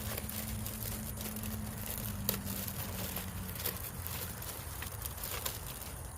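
Small clicks and crinkles of packaging, papers and loose parts being handled, over a low steady hum that stops a little past halfway.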